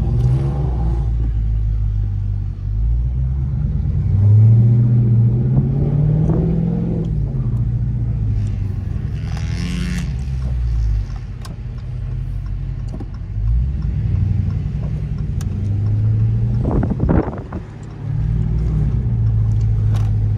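Muscle-car V8 engine revving up and easing off several times, its pitch rising and falling, with a brief hiss about halfway through.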